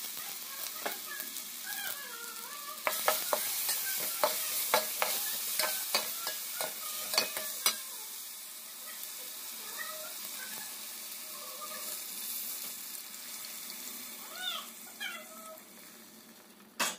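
Drumstick pods, small onions and garlic sizzling as they fry in a pot while ground tomato is stirred in with a slotted steel spatula. The spatula clicks and scrapes against the pot many times from about three to eight seconds in, and the sizzle grows quieter toward the end.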